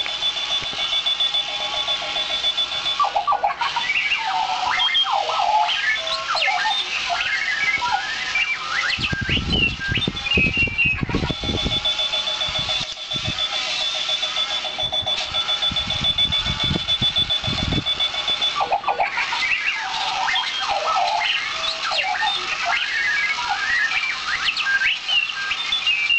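Runaway alarm clock on wheels going off: a steady high electronic beep alternates with rapid warbling, chirping electronic tones. Low rumbling comes twice in the middle.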